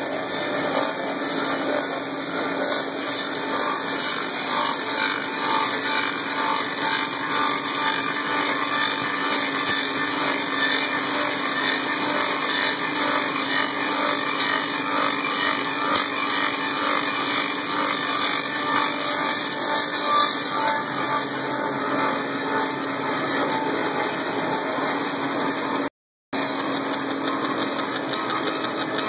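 Belt-driven Klotz lathe running steadily while turning a wooden axe handle: a steady hum under a continuous rasp of the cutter on the wood. The sound drops out for an instant near the end.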